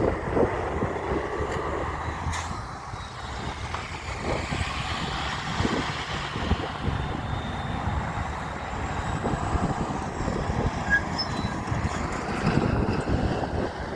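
Heavy truck passing with engine and tyre rumble, loudest at the start and rising again near the end.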